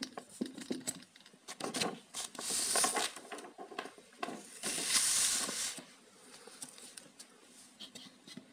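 A sheet of paper rustling and sliding under a hand, with two longer swishes about two and a half and five seconds in, and scattered light taps and clicks.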